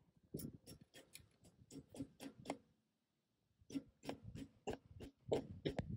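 Claw hammer lightly tapping at a staple and wire on a wooden fence post: a run of quick light taps, several a second, a pause about halfway, then another run.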